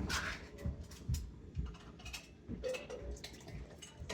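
Light knocks and clicks of kitchen things being handled on a counter, scattered and uneven, with one louder knock at the very start.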